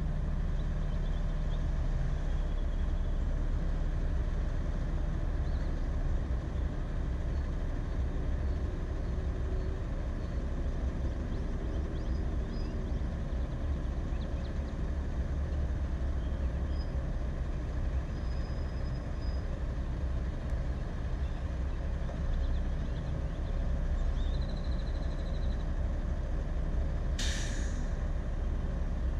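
Steady low rumble of idling vehicles stopped at an intersection, with a semi-truck waiting just ahead. Near the end comes one short, sharp air-brake hiss.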